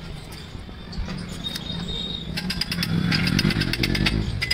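Quick, light hammer taps on a welded square-tube steel frame, a rapid run of sharp metallic strikes with a ringing tone in the second half, as the frame is knocked square. Under it a low hum grows louder.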